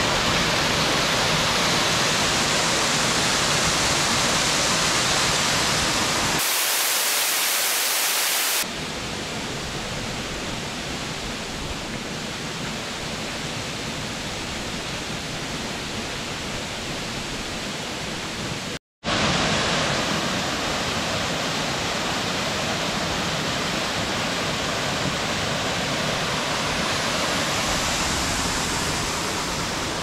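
Steady rushing of falling water from a waterfall. The level changes abruptly twice in the first nine seconds, and the sound cuts out for a moment just before 19 seconds in.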